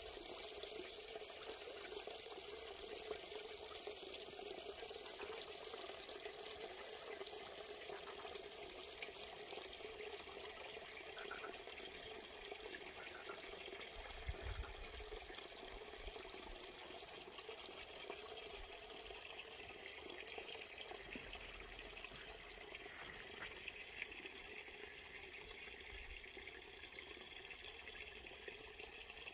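Small stream flowing steadily, an even rushing and trickling of water.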